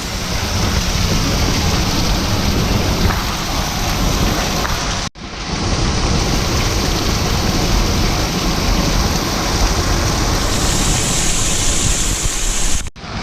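Waterfall pouring close by: a loud, steady rush of falling water, cut off twice by a brief drop-out, about five seconds in and near the end.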